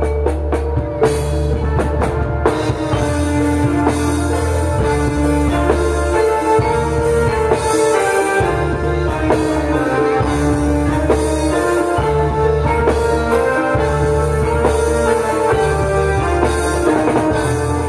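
Javanese gamelan ensemble playing through a loud PA: ringing metallophone and bonang tones over drums, with a deep bass that pulses on and off.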